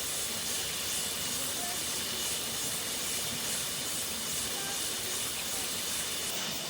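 Steady hiss of running water at a low-flowing waterfall, with insects droning in the background.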